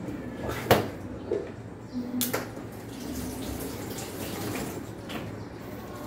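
Plastic casing panel of a portable air conditioner being pried off by hand, its snap clips letting go with sharp clicks: the loudest about a second in, another a couple of seconds in, and fainter ones later. The panel is stiff, as the unit is new and has never been opened.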